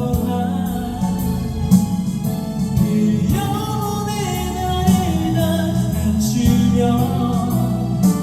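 A ballad sung as a cover, one voice carrying the melody over instrumental accompaniment.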